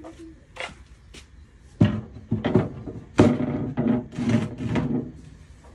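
Items being set down and shifted on a wooden shelf: a few light clicks, then a run of knocks and scrapes against the wood from about two seconds in.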